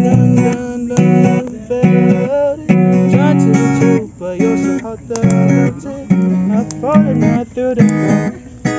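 Background music led by acoustic guitar, with plucked and strummed chords.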